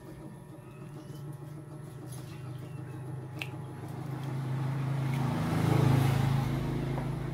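A motor vehicle's engine, growing louder to a peak about six seconds in and then fading as it passes by.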